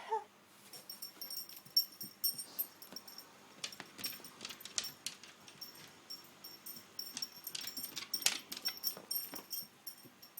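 A Dobermann gives a brief whine, then a run of short, irregular noises.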